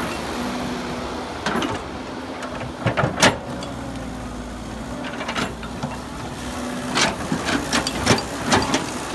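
Excavator at work: its diesel engine runs steadily while sharp clanks and knocks come irregularly, the loudest about three seconds in and several close together near the end.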